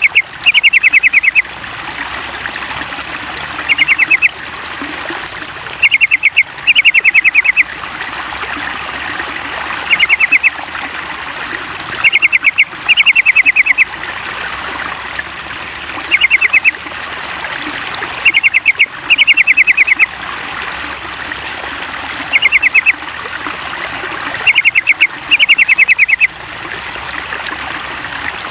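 Yellow-vented bulbul (trucukan) calls in short bursts of rapid chattering notes, repeating every two to three seconds, over a steady trickle of running water.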